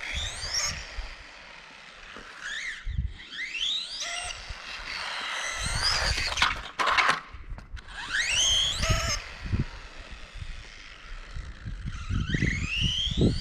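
Small 1/18-scale electric RC car's motor and gear transmission whining, the pitch rising steeply each time it accelerates, several runs in a row with pauses as it eases off.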